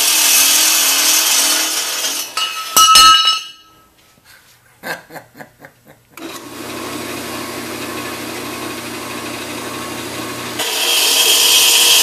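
Ellis 1600 metal-cutting band saw's blade running through steel square tubing with a loud, steady rasp. About two and a half seconds in come a few loud metal clanks, a short quiet spell and a run of quick knocks. Then the saw runs with a lower, steadier sound, and the loud cutting returns near the end.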